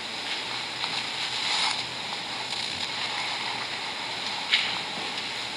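Steady hiss of quiet room noise in a church sanctuary, with a brief faint click about four and a half seconds in.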